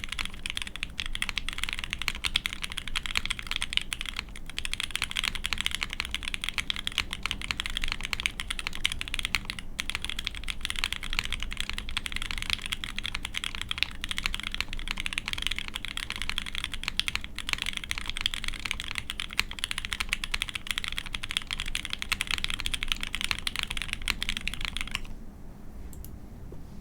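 Fast, continuous typing on a Keycult No.2/65 mechanical keyboard with an aluminium plate, SP-Star Meteor White switches lubed with Krytox 205g0, and CRP keycaps: a dense stream of key clacks with a couple of brief pauses. The typing stops about two seconds before the end.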